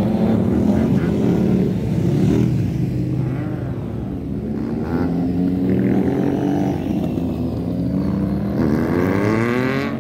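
Several racing motorcycle engines running together, their pitches rising and falling as the bikes rev and pull away. Near the end one engine revs up in a clear rising sweep.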